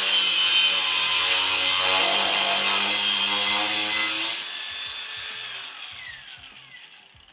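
Worx cordless angle grinder with a cutting disc grinding through thick steel plate under full load, a steady high whine with a harsh grinding hiss. About four and a half seconds in the disc comes out of the cut and the sound drops, and the motor winds down with a falling whine.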